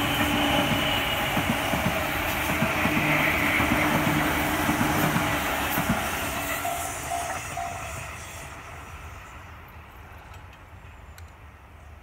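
Tobu 10000-series electric commuter train passing over a level crossing, its wheels clattering over the rail joints. The sound fades away after about six seconds as the last car clears, with the crossing's warning bell ringing.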